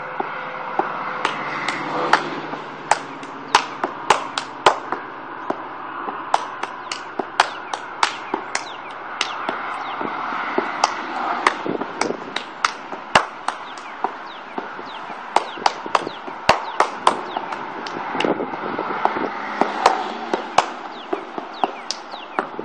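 Sharp taps and scuffs, irregular and about a couple a second, from a dancer's sneakers stepping and pivoting on a gritty asphalt driveway, over a steady hiss.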